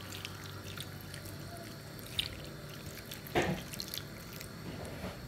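Water poured from a mug onto fish, seafood and vegetables laid on banana leaves, trickling and dripping, with a few small splashes, the loudest about three and a half seconds in.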